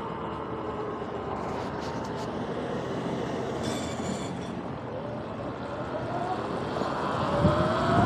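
Sur-Ron X electric dirt bike riding along: its motor and drivetrain whine sinks slightly in pitch as it slows, then rises over the last few seconds as it speeds up again. Under it runs a steady rush of tyre and wind noise, with a thud near the end.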